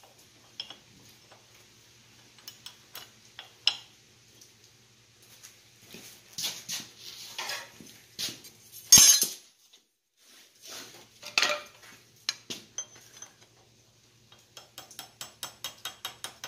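Steel clinking and clattering as quarter-inch round stock and tools are handled on a rivet header held in a bench vise, with one loud sharp metallic clank about nine seconds in. Near the end comes a quick run of light metallic ticks.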